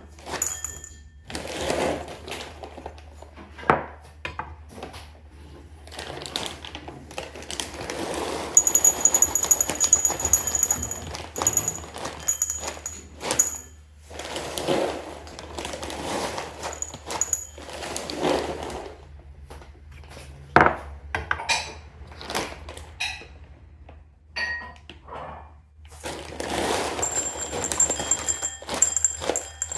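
Kitchen handling sounds while cat food is prepared: a string of knocks, clicks and clinks of bowls and containers being set down and handled.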